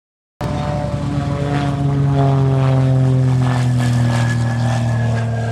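Piston-engine propeller airplane flying past low, its engine and propeller note sliding slowly down in pitch as it goes by. The sound comes in suddenly about half a second in and cuts off abruptly at the end.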